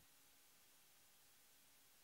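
Near silence: faint hiss after the music has faded out.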